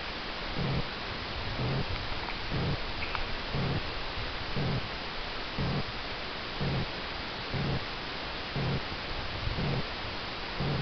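Domestic cat purring close up: a low rumble that swells about once a second.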